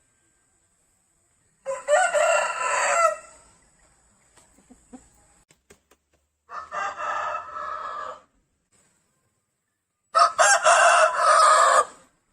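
Rooster crowing, three separate crows a few seconds apart, each about one and a half to two seconds long; the middle crow is quieter than the other two.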